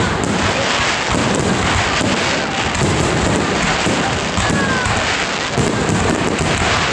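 Aerial firework shells bursting one after another, with a dense, continuous crackle of many small cracks and bangs.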